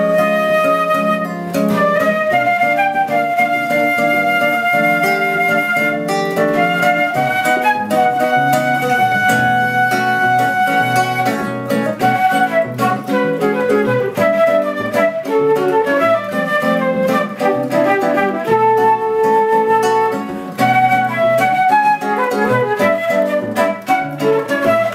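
Concert flute and nylon-string classical guitar playing a duet: the flute carries the melody in held and running notes over plucked guitar accompaniment.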